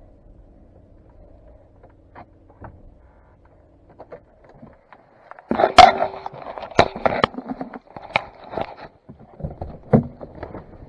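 A faint steady hum, then from about five seconds in a loud, irregular run of sharp knocks, scrapes and clatter of hard objects being handled.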